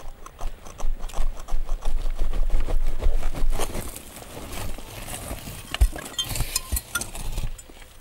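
Gloved hands scraping and pulling away loose earth and ash covering a charcoal kiln, with crumbling soil and clods falling in a quick run of small knocks and scrapes. The knocks are densest in the first half and thin out later, with one sharper knock a little before six seconds in.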